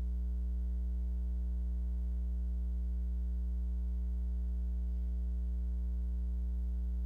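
Steady electrical mains hum in the recording, a low drone with a row of evenly spaced higher tones above it and no other sound.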